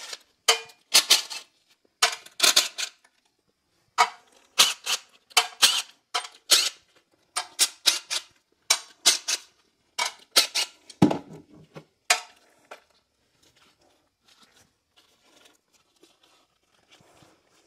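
DeWalt cordless impact driver hammering loose the differential cover bolts on a 10-bolt rear axle: about ten short bursts of rapid rattling impacts over the first twelve seconds. After that, only faint small clinks are heard.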